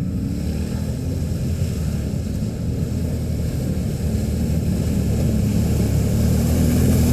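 Can-Am ATV engine running under way, a steady drone that picks up in pitch and loudness near the end as the throttle opens.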